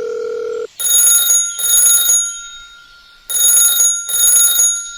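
A steady electronic beep that cuts off within the first second, then shrill electronic ringing in pairs of bursts, a pair about every two and a half seconds, like a ringing phone or alarm.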